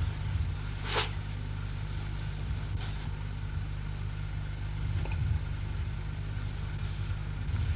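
Steady low hum with faint hiss from an old television soundtrack, with a few faint clicks.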